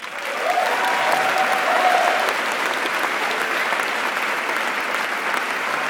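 A large theatre audience applauding, breaking out right after an introduction and then holding steady.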